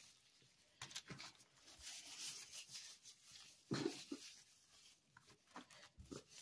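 Faint crinkling and squishing of plastic food-prep gloves and aluminium foil as raw chicken pieces are rubbed with seasoning on a baking pan. A brief low vocal sound comes about four seconds in.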